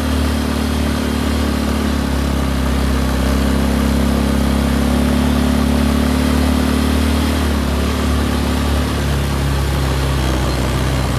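Quad bike (ATV) engine running steadily under light throttle as it rolls along, its note dropping lower about eight seconds in.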